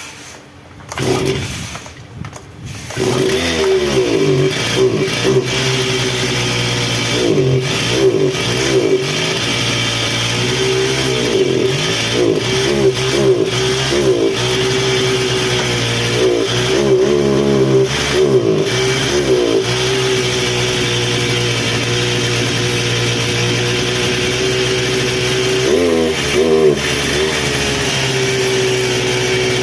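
Stihl FS400 brush cutter's two-stroke engine being pull-started: a couple of short bursts, then it catches about three seconds in and runs, its revs rising and falling again and again as the throttle is worked. It holds a steady speed for several seconds before being revved again near the end.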